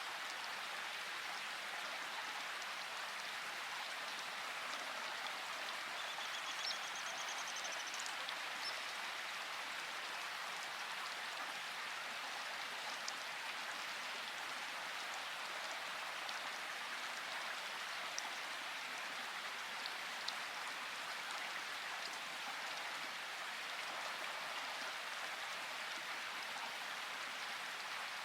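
Steady rain falling, an even hiss with a few separate louder drop ticks here and there.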